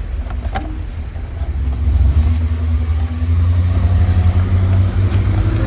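A car engine running close by with a low rumble and steady hum, getting louder about two seconds in. A single sharp click comes about half a second in.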